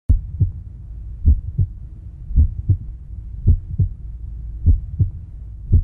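Heartbeat sound effect: paired low thumps, lub-dub, repeating evenly about once a second over a faint low hum.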